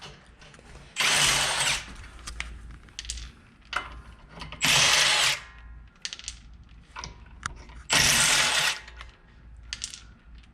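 A power tool spinning lug nuts off a car wheel in three short runs, about three and a half seconds apart, with small metallic clicks between them.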